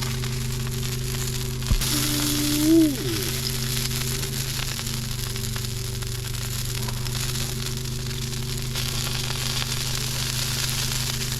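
Pork butt sizzling in an open hickory-fired smoker: a steady crackling hiss over a low steady hum. There is a thump about two seconds in and a short hummed voice just after.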